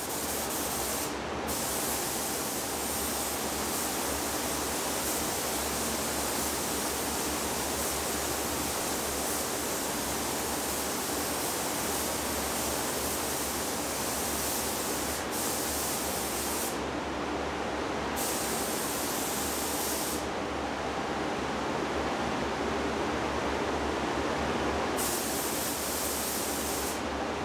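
Gravity-feed paint spray gun hissing steadily as it sprays a coat of clear, pigment-free base coat. The highest part of the hiss drops away a couple of times in the second half.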